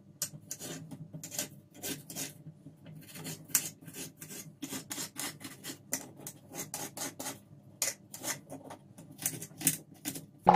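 Kitchen knife slicing a red onion on a glass cutting board: irregular runs of quick, sharp taps as the blade meets the board, a few a second, with a couple of brief pauses.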